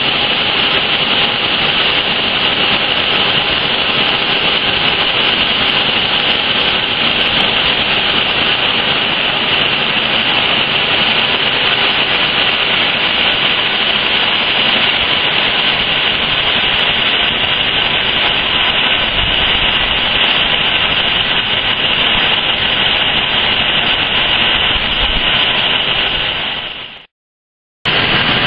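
Steady, loud industrial noise of running machinery in a foundry furnace hall, unchanging until it fades out near the end.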